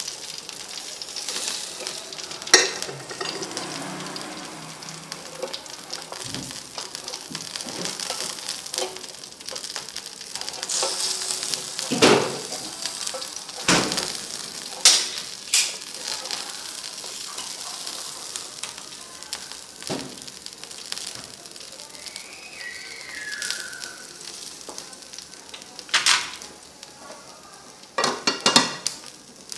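Pork ribs sizzling on an electric tabletop grill, a steady hiss of fat and juices cooking. Scattered sharp clicks and taps break through it as wooden chopsticks turn the pieces on the wire rack, with a cluster of them near the end.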